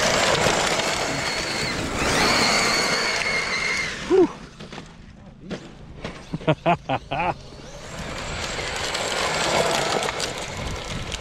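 Traxxas Maxx Slash RC short-course truck running flat out on 6S: a high electric motor whine over the rush of tyres on dirt and gravel. The whine drops away after about four seconds and builds again near the end, with a few short voice sounds in the lull.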